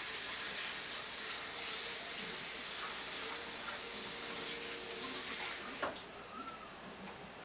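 Kitchen tap running into a sink while a pot is rinsed; the water stops about six seconds in. A few light clicks follow, and a sharp knock near the end.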